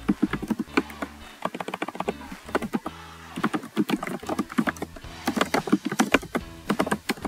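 Typing on a computer keyboard: a quick, irregular run of key clicks, with a short pause about three seconds in.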